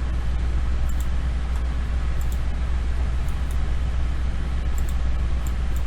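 Steady low hum under a constant hiss of background noise, with a few faint, very short ticks scattered through it.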